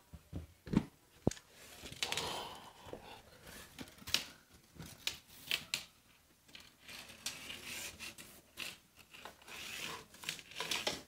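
A steel tape measure being pulled out and laid along the floor: scattered clicks and taps with bouts of scraping and rubbing as the blade and hand slide over the floor and baseboard.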